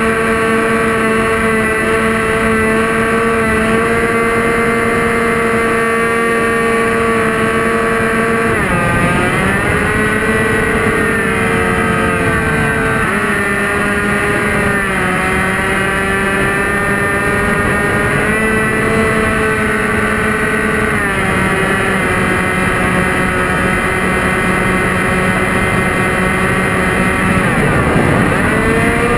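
A radio-controlled model airplane's motor and propeller, heard from a camera on the plane, give a steady buzzing whine over wind rush. The pitch sweeps and drops about a third of the way in, shifts again about two-thirds in, and climbs back near the end as the throttle changes.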